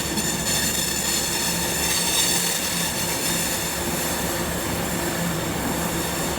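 Train running steadily at the station: a constant low hum with a high-pitched whine over it.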